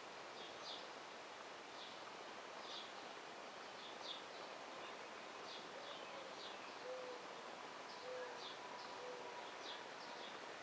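A dove cooing, three short low notes in the second half, over repeated short, high chirps from small birds.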